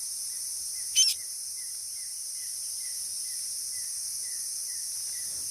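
Steady high-pitched drone of insects with faint short chirps repeating about twice a second, and one brief, sharp, high chirp about a second in.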